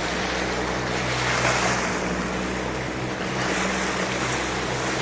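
Water rushing along the hull and bow wave of a moving boat, with the boat's engine humming steadily underneath.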